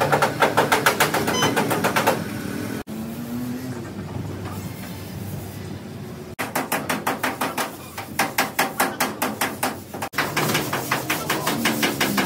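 Rapid, evenly repeated strokes of a hand tool on metal, about six or seven a second, in several bursts with a quieter pause between them.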